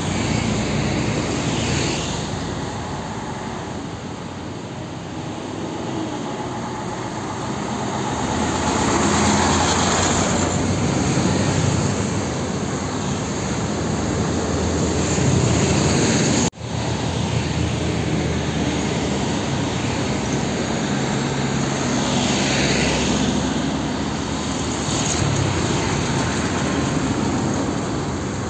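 Roadside traffic: heavy diesel trucks and motorbikes passing close by, engine rumble under a steady rush of tyre noise that swells as vehicles go by, loudest about a third of the way in and again near the end. The sound cuts out for an instant a little past the middle.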